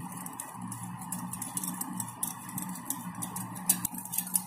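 A spoon stirring milk, sugar and yeast in a small glass bowl, ticking lightly and irregularly against the glass.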